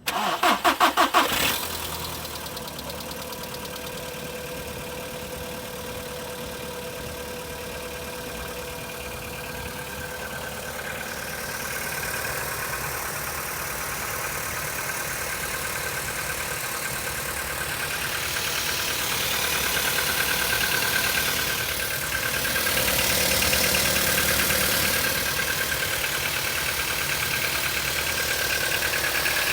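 Volkswagen CFNA 1.6-litre four-cylinder petrol engine cranked by the starter and catching within about a second and a half on a cold start, then running at idle with the knock it makes when cold. The running sound gets louder around halfway and again in the last third.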